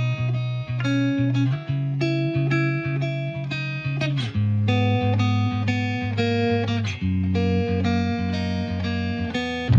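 Background music: guitar playing chords over a steady bass line.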